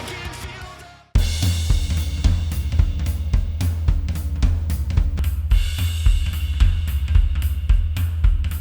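Music played back through SoundPEATS Air4 Pro true wireless earbuds: a rock song fades out, and about a second in a jazz track starts with a drum kit keeping steady time on cymbal, hi-hat and snare over a deep bass.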